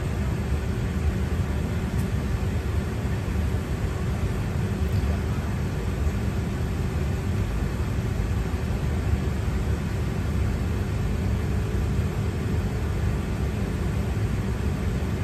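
Steady rush and hum inside a Boeing 757-300 cabin parked at the gate, from the air conditioning and aircraft systems, with a faint steady tone. The engines are not yet spooling up.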